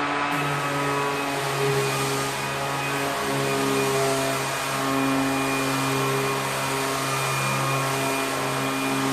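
Ryobi One+ 18-volt cordless 5-inch random orbit sander running while sanding a wall, a steady motor hum that wavers slightly in pitch.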